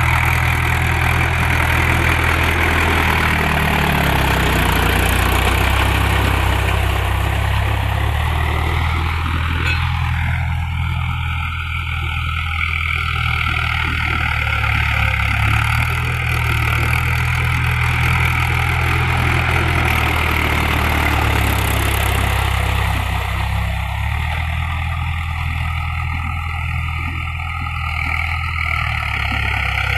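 Mahindra 415 DI tractor's four-cylinder diesel engine running with a steady low drone, its note shifting slightly several times.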